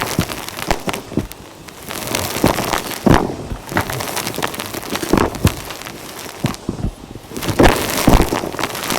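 Irregular crunching and crackling of dry dirt and grit, in uneven clusters of sharp crackles with short quieter gaps between them.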